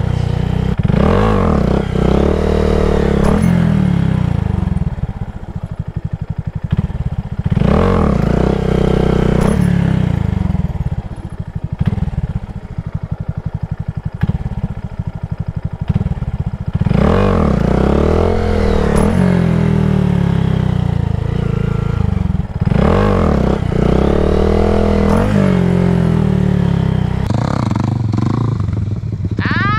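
2022 Honda Grom's single-cylinder engine revving up hard and then dropping off throttle, four times over, running low and uneven in between: repeated wheelie pulls.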